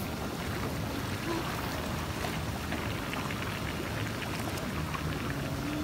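Rushing, churning water of a lazy river's current, a steady splashing wash.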